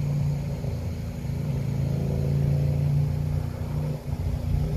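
A steady low mechanical hum from a running motor or engine, with a brief dip in level near the end.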